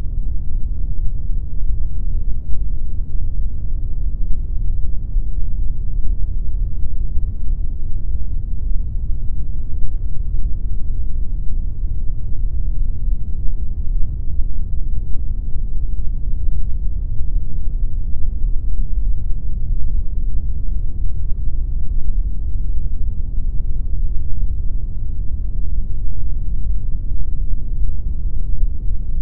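Steady synthetic pink noise: an even, unchanging hiss-like rush, heaviest in the deep low end and dull at the top.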